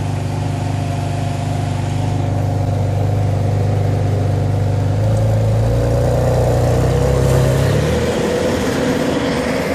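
Ferrari 599's V12 engine idling steadily, its note stepping up slightly about halfway through. Near the end the car pulls away at low revs.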